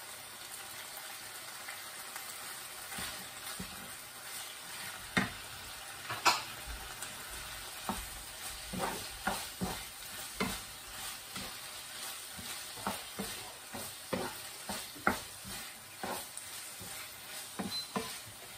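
Fish balls and Thai basil sizzling in a frying pan as a wooden spatula stirs them. Irregular knocks and scrapes of the spatula against the pan begin about five seconds in.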